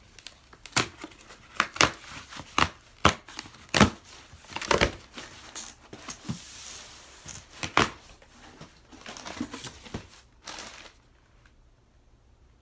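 Packing paper and wrapping crinkling and rustling in irregular sharp crackles as a cardboard shipping box is unpacked by hand, dying away about ten and a half seconds in.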